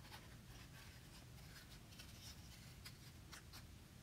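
Faint scissor snips through construction paper and light paper handling, a few scattered small clicks over near silence.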